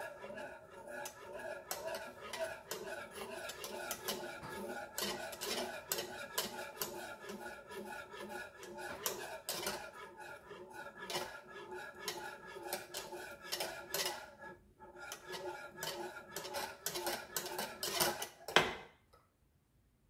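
Wire whisk beating hot milk and cream with egg yolks and sugar in a saucepan, its wires clicking and scraping rapidly against the pan. The whisking stops with one louder clack near the end.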